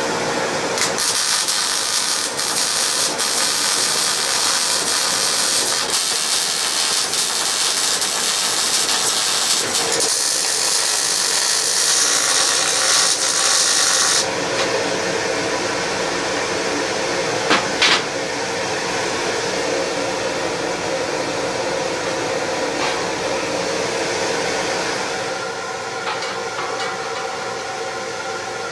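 Welding arc crackling and hissing as steel plate is welded, stopping abruptly about fourteen seconds in. After that a steady mechanical hum remains, with two sharp clicks a few seconds later.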